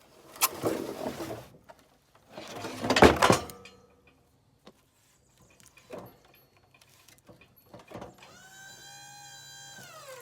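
Two short rushes of noise and a few knocks. Then, about eight seconds in, a motor on a Wood-Mizer LT35 sawmill starts a steady whine that drops in pitch and stops near the end.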